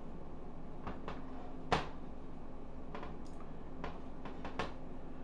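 Kitchen clatter: a handful of separate knocks and clicks of things being handled and set down, the loudest a little under two seconds in. A steady low hum runs underneath.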